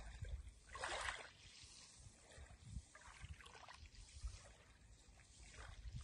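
Small waves lapping on a sandy shore at night: a soft wash swells about a second in, with fainter washes around three seconds and just before the end, over a low, fluttering rumble.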